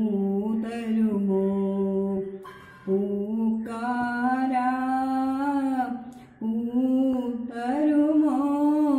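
A woman singing solo without accompaniment: slow phrases of long held notes, with two short breaks for breath.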